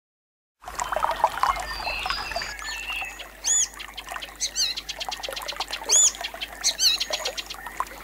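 Wild birds calling in tropical forest, starting after a moment of silence: a chorus of short high chirps and whistles. Loud arched notes come in quick groups about three and a half, four and a half, six and almost seven seconds in, with a fast rattling trill between them.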